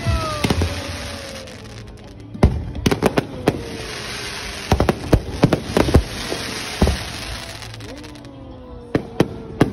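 Fireworks display: sharp bangs from bursting shells in irregular clusters, over a crackling hiss, with a few whistling tones that slowly fall in pitch.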